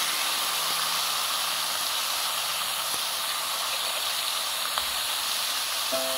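Marinated beef and chicken sizzling on a hot electric grill plate, a steady hiss, with a couple of light clicks from metal tongs turning the meat.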